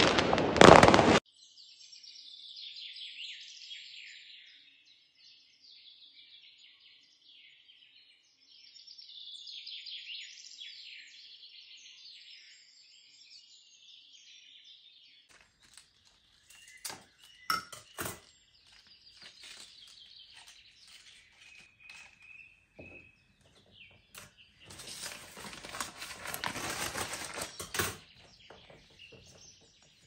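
Fireworks crackling and bursting, cutting off about a second in. Then small birds chirping and singing for several seconds, followed by a few sharp knocks and clicks and a few seconds of rustling near the end.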